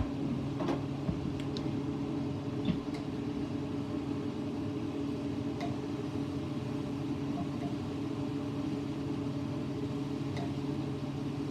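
Steady low mechanical hum, even in level throughout, with a few faint light clicks and taps.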